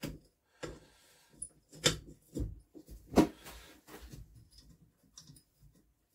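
Ratchet and socket wrenching on a BSA engine's tight cylinder-head bolts: several sharp clicks and knocks a second or so apart, then lighter scattered ticking.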